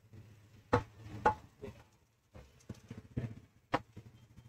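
Several sharp knocks and taps of a wooden skewer against a steel tray as a spiral-cut potato is turned in batter, the loudest two about a second in. A low steady hum lies underneath.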